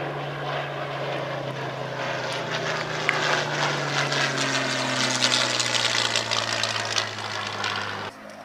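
Single-engine WWII piston fighter flying past overhead, its propeller engine droning steadily. The pitch slowly falls as it passes and it is loudest in the middle. It cuts off suddenly near the end.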